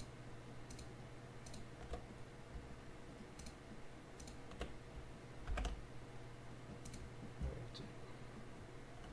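Scattered clicks of a computer mouse and keyboard, one every second or so with uneven gaps, the sharpest about five and a half seconds in, over a faint steady hum.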